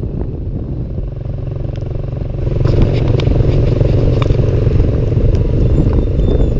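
Motorcycle engine running while riding, with scattered rattling clatter. It gets louder about two and a half seconds in.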